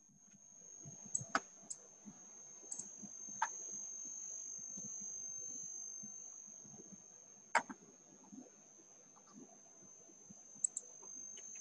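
Scattered sharp clicks over low rustling, with a steady faint high-pitched whine; the loudest click comes about halfway through.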